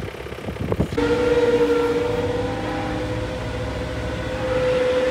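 A Multihog compact tractor running, heard from inside its cab: a steady whining drone with a held tone, rising slightly near the end. It starts about a second in, after a brief rougher rumble.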